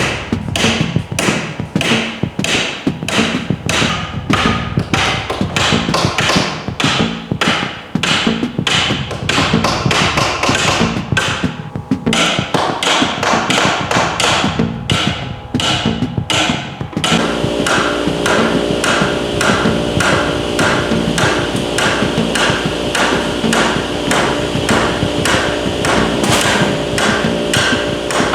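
Repeated hammer blows knocking apart the wooden joints of an old danjiri float, a fast, even run of sharp knocks. About two-thirds of the way through, steady sustained tones join the knocking.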